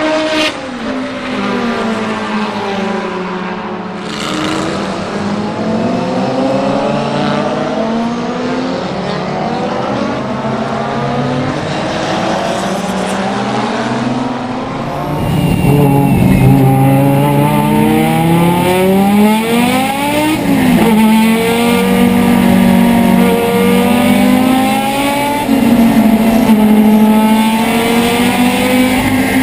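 Race-car engines at speed, chiefly a 1981 Audi Urquattro's turbocharged 2.2-litre five-cylinder: first passing by with its pitch swelling and falling, then, about halfway through, louder and close up as it accelerates hard, the pitch climbing and dropping back at each gear change.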